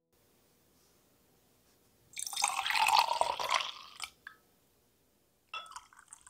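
Milk poured from a bottle into a measuring beaker for about two seconds, then a shorter, quieter pour of water from a small cup near the end.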